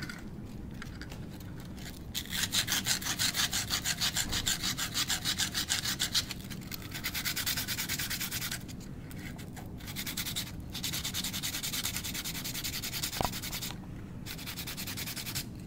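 Sandpaper, 220 grit, rubbed by hand over a small piece of metal on a wooden V-board: runs of rapid rasping strokes with short pauses between, the strongest run from about two to six seconds in. A brief squeak sounds once near the end.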